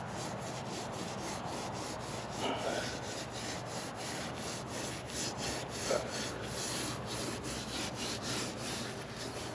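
Damp sponge scrubbing back and forth over fresh, sandy mortar in quick repeated gritty strokes, smoothing the mortar to a finish.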